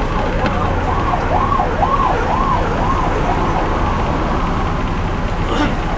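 Fire engine siren rising and falling about twice a second, loudest a couple of seconds in and fading away before the end as it passes. Under it runs the steady drone of the bus's Cummins LT10 straight-six diesel engine.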